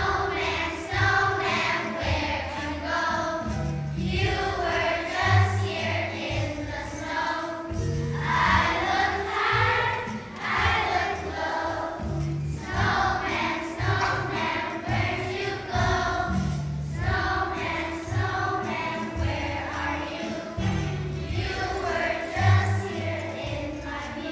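A choir of young schoolchildren singing a song together in unison, over an instrumental accompaniment with a steady bass line.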